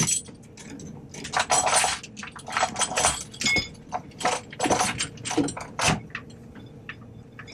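Metal chains rattling and clinking in a series of short bursts as the engine hanging on them is lowered and shifted.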